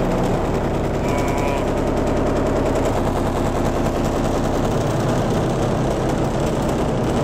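A 15-inch subwoofer playing loudly in a welded 1 mm sheet-metal box. It comes as a rapid, steady train of pulses over a low, sustained bass.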